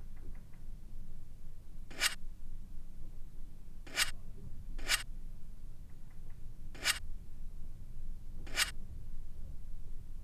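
Five short, sharp scratchy swishes, unevenly spaced, over a low steady rumble.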